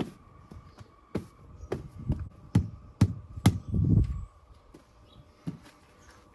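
A series of sharp knocks, about seven in the first three and a half seconds, then a heavier low rumbling thud about four seconds in.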